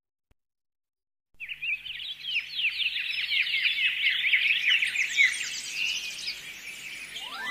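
Silence, then about a second and a half in, a flock of birds starts chirping: many quick, downward-sweeping chirps overlapping densely, easing off a little near the end as a rising tone comes in.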